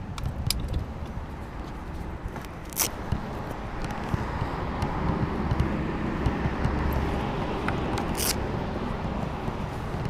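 Indian Scout Bobber V-twin idling through a Vance & Hines 3-inch aftermarket exhaust, a steady low, lumpy exhaust note. Two sharp clicks, about three seconds in and again after eight seconds.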